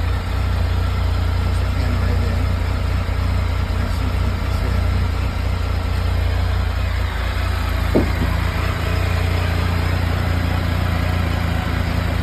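Can-Am Spyder RT Limited's Rotax 1330 ACE three-cylinder engine idling with a steady low hum, with one short click about eight seconds in.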